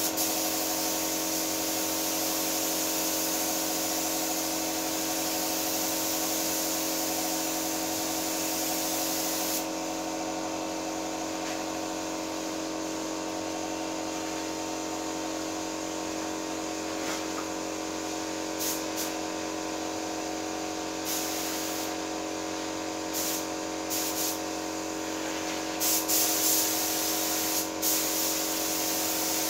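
Compressed-air paint spray gun hissing steadily as car paint is sprayed, with a steady hum underneath. The spray stops about ten seconds in and returns near the end as a series of short bursts.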